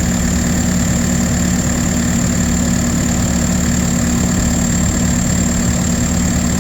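Diesel engine of a Case construction machine running steadily at idle, with a constant high whine over the drone, while its air-conditioning compressor runs during a refrigerant recharge.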